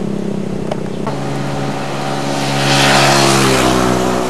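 Motor vehicle engine passing on the road, growing louder to a peak about three seconds in and then dropping in pitch as it goes by, over a steady engine hum.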